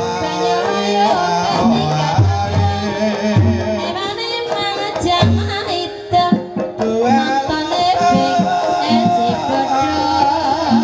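Live Javanese gamelan music for an ebeg horse dance: a singer's wavering melody over steady metallophone tones and regular hand-drum strokes.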